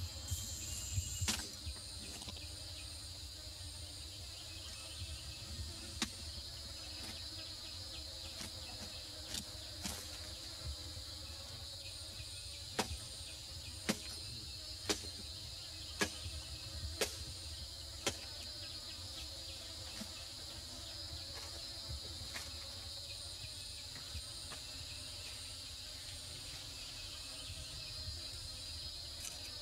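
A steady high drone of jungle insects, with a series of sharp knocks, coming about once a second for a stretch in the middle.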